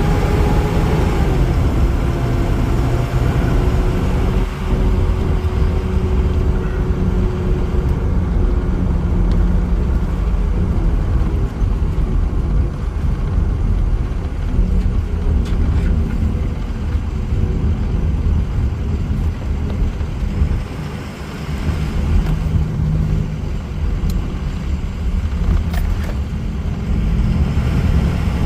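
Ford E350 van's 6.0 Power Stroke V8 turbodiesel running on a test drive, a steady low rumble with road noise that dips briefly about two-thirds of the way through.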